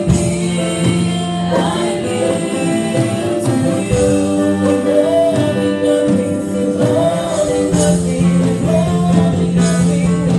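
Live gospel worship song: several singers with microphones holding long, wavering notes over a band with keyboard and drums.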